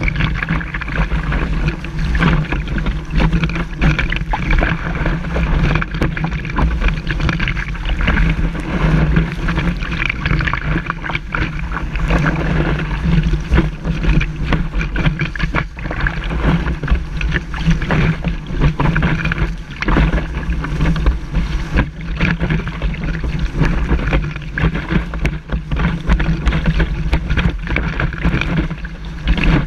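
Kiteboard planing over choppy water: a steady, rumbling rush of water and spray against the board, with wind buffeting the board-mounted action camera.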